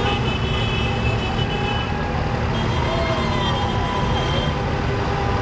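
Steady road traffic: cars and trucks passing on the road, over a continuous low rumble.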